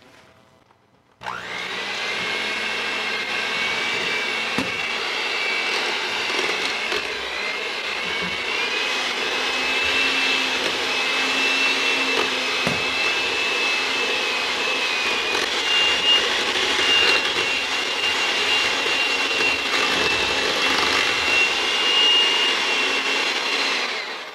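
Electric hand mixer running, its beaters working eggs into a thick cooked churro dough in a heavy pot. It starts about a second in and runs steadily, with a high motor whine that slowly rises in pitch.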